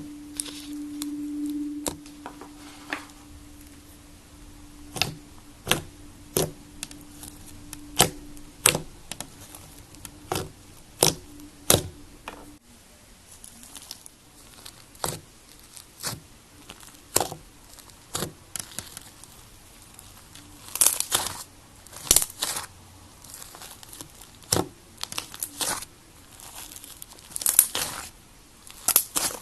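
Slime being squeezed, poked and stretched by hand, giving irregular sharp pops and crackles as air pockets burst, with a few longer crackling stretches. A faint low hum runs under the first twelve seconds or so.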